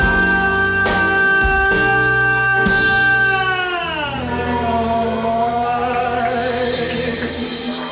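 Live band music with a male singer holding one long note for about three seconds, then sliding down in pitch and continuing with vibrato, over a steady drum beat.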